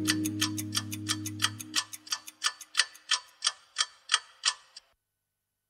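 Clock-like ticking, about three ticks a second, closing the song. The song's last low held chord fades out in the first two seconds, leaving the ticks on their own, and the ticking stops about five seconds in.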